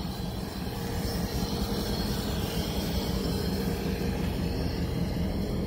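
Diesel-electric freight locomotive idling: a steady low engine rumble with a constant hum, heard close beside the locomotive's trucks and fuel tank.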